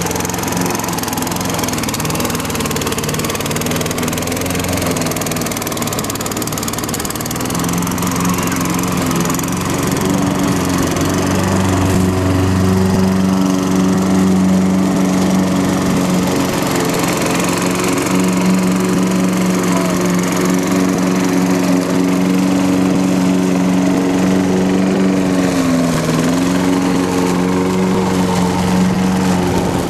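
Walk-behind gas lawn mower's small engine running steadily while being pushed through grass. Its pitch dips briefly and recovers a few seconds before the end.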